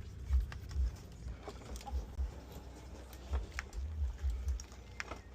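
Scattered light clicks and taps as pressure washer fittings and gun are handled, with irregular low bumps beneath.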